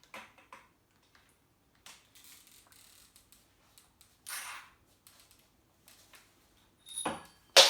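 Bicycle parts and tools being handled: scattered faint clicks, a brief scrape about four seconds in, then a loud metallic clink with a short ring near the end.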